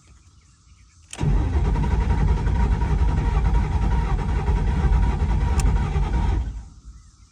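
A Ford Mustang Boss 302's 5.0-litre V8 is cranked on the starter after a click, turning over loudly for about five seconds and then stopping without catching.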